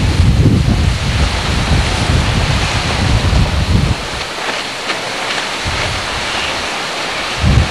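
Strong wind buffeting the microphone in gusts over a steady hiss of wind-whipped surf. The gusting eases about four seconds in, leaving mostly the surf hiss, and picks up again just before the end.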